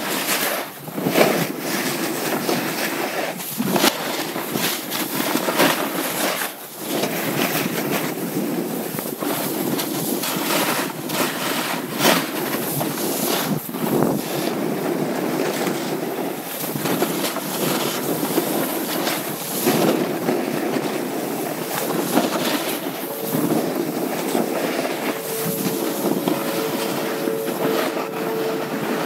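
Snowboard sliding and carving down a groomed snow slope: a continuous rough scraping hiss of the board's edge on the snow, mixed with wind on the microphone, with occasional sharper scrapes. A steady two-note hum comes in near the end.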